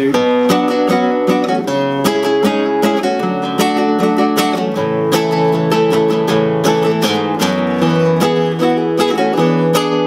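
Nylon-string classical guitar with a capo, strummed steadily through a chord progression, several strums a second over ringing chords.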